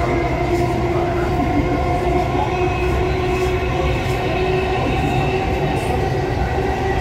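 Delhi Metro Red Line train running at speed, heard from inside the carriage. A steady wheel-and-track rumble is overlaid by a constant hum of several held tones.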